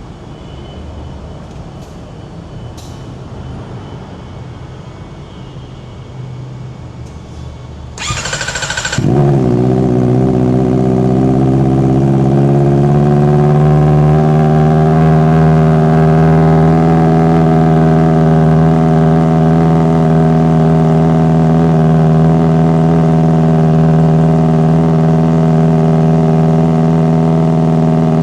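Kawasaki ZX-4RR's 399 cc inline-four being cold-started. After about eight seconds of low background rumble, the starter cranks for about a second, then the engine catches and settles into a steady high idle.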